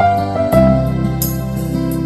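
Background music: a soft, slow instrumental with sustained keyboard-like notes and a bass line.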